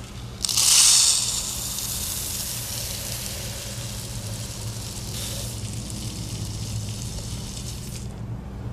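Birdseed pouring through a funnel into a plastic bottle: a steady rushing hiss of seeds that starts suddenly, is loudest in the first second, and stops near the end.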